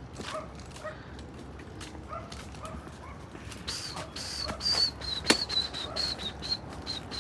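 Animal sounds: short distant dog-like yelps in the first half, then a quick run of high, short bird chirps, with one sharp click about five seconds in.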